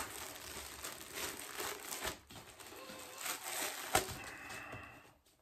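A T-shirt's plastic packaging crinkling and rustling as it is torn open and unwrapped, with scattered sharp crackles and a louder snap about four seconds in, dying away near the end.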